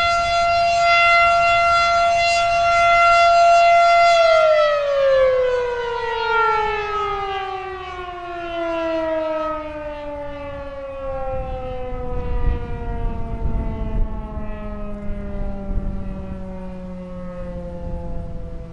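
Federal Signal Model 7 electromechanical warning siren sounding a steady high tone. About four seconds in, its pitch starts falling and keeps gliding slowly down as the rotor winds down.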